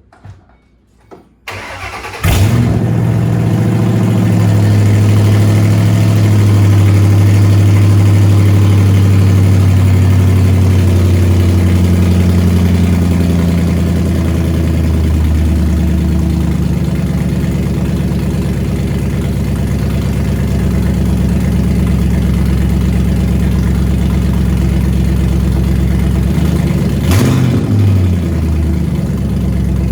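Ford Mustang GT's V8 engine cranked over and starting through its newly installed exhaust mid-pipes, catching about two seconds in and running at a loud fast idle that settles lower about halfway through, then revved briefly twice near the end.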